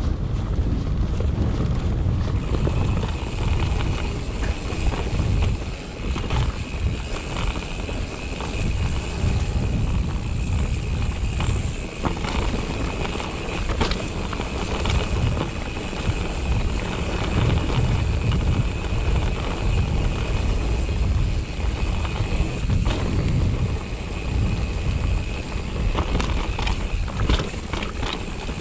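Wind buffeting the camera microphone and a mountain bike's tyres rumbling over rocky dirt trail, with scattered clicks and knocks from the bike. A steady high buzz joins about two seconds in.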